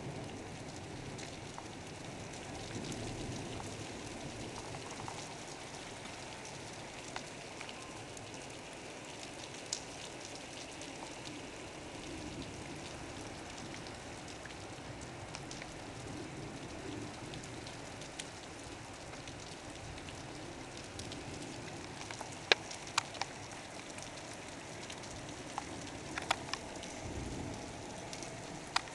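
Heavy rain falling steadily on a flat rooftop terrace, with a few sharp taps of drops near the end.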